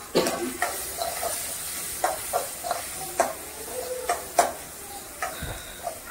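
Metal spatula scraping and clinking against a hammered metal kadai as onions and tomatoes are stirred and sautéed, over a faint sizzle of frying. The clicks come irregularly, the sharpest about four seconds in.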